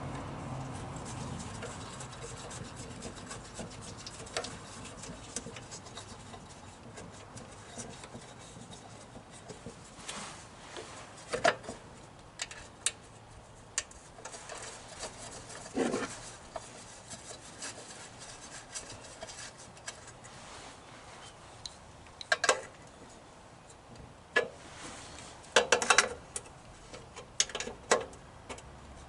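Scattered clinks, knocks and scrapes of hand tools and metal parts being handled while the mower's engine shroud and its bolts go back on, a few sharp strikes standing out, the loudest about 11, 16 and 26 seconds in.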